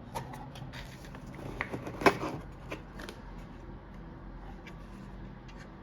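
Hands handling a wireless charger and its packaging: light rustling and scattered small clicks, with one sharper click about two seconds in.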